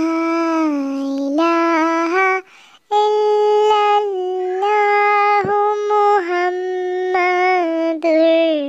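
A high voice singing a slow, unaccompanied melody in long held notes that step up and down in pitch, with a short break between phrases about two and a half seconds in.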